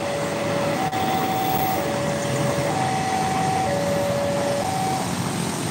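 An electronic two-tone warning signal alternates between a lower and a higher note, each held about a second, and stops near the end. Underneath it runs the steady rumble of a train passing on the tracks below, along with traffic.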